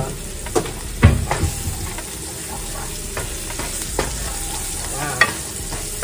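Red onion and garlic sizzling steadily in vegetable oil in a frying pan as they sauté, with a handful of sharp knocks and clacks from stirring and handling the pan, the loudest about a second in.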